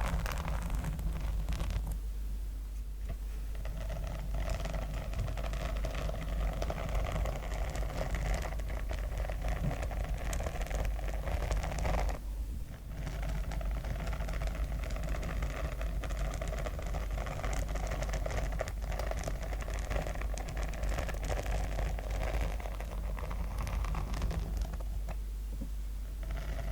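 Close-miked scratching over a sequin-covered notebook, a continuous scratchy rustle with a few brief pauses.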